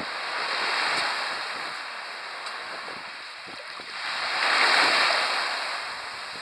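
Small waves washing in on the beach and drawing back, in two swells: a gentle one about a second in and a louder one near the five-second mark.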